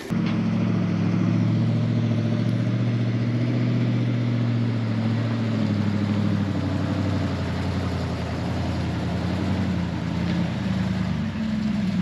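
Engine of an old Chevrolet grain truck, loaded with shelled corn, running steadily as it drives slowly up a dirt farm lane, with a slight rise in engine note near the end.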